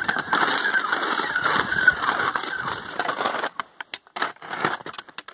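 Altai Hok skis scraping and crunching over icy, crusted snow, a continuous gritty hiss with a few short squeaks. About three and a half seconds in it breaks off into scattered crunches and snaps.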